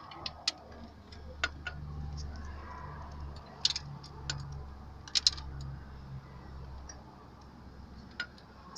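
Scattered sharp metallic clicks and clinks of hand tools being handled during work on a car engine, over a low steady hum through the middle.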